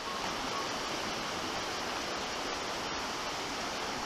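River water flowing: a steady, even rush with no distinct events.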